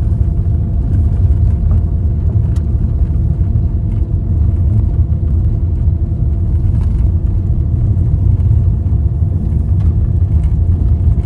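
A car driving along a road: a steady, loud low rumble of tyres and engine that holds without a break.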